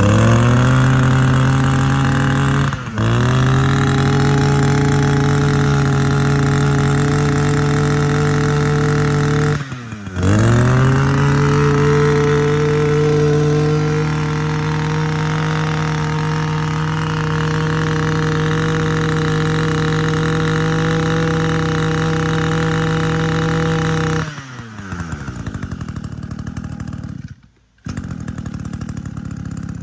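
Echo 23 cc two-stroke brush cutter engine running at high revs. The revs dip sharply and climb back twice, about 3 s and 10 s in. About 24 s in the throttle is let off and it slides down to a lower, quieter running.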